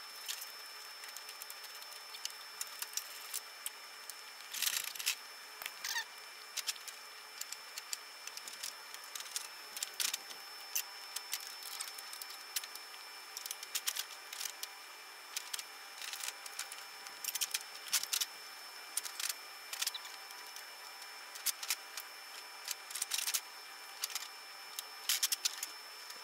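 Scattered clicks, scrapes and short creaks from the fiberglass body shell of a John Deere RX95 riding mower being worked and lifted off its frame by hand.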